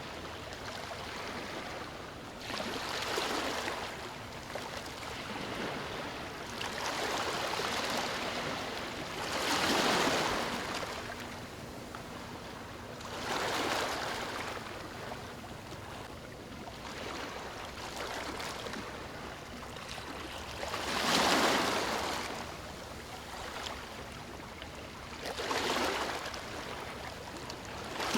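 Calm, small waves breaking and washing up a sandy beach: a steady hiss that swells and fades with each wave, about seven swells at uneven intervals of a few seconds.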